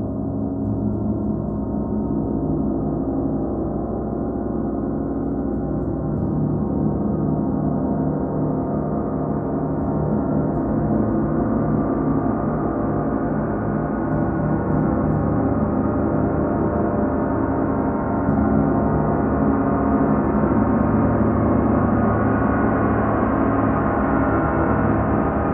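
38-inch Paiste gong sounding in a sustained, dense wash of many overlapping tones, with no separate strikes. It slowly grows louder and brighter.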